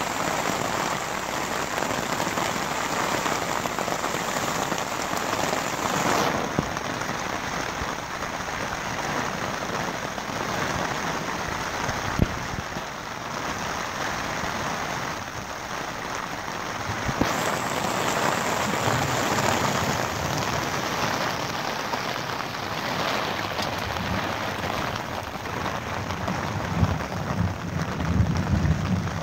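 Steady rain falling on a rooftop tent's fabric, a dense, even patter heard across a few spliced takes that change abruptly about 6 and 17 seconds in. A low rumble rises near the end.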